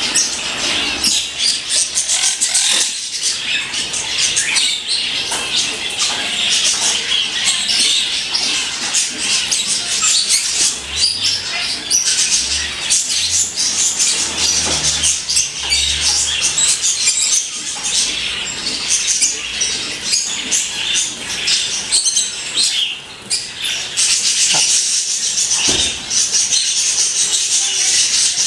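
Many small cage birds chirping and chattering at once: a dense, continuous chatter of short, high chirps.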